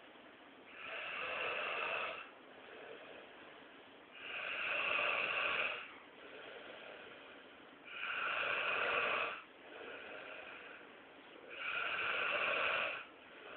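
A person snoring in their sleep: four loud snores come about every three and a half to four seconds, with quieter breathing between them.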